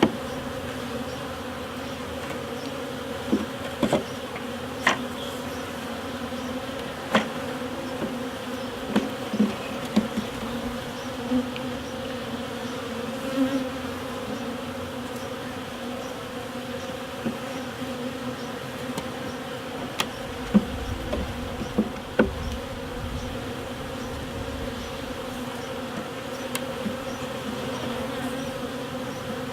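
Swarm of honeybees buzzing steadily around an opened hive, with scattered sharp knocks and clicks from wooden hive boxes and frame trays being handled, the loudest about two-thirds of the way in.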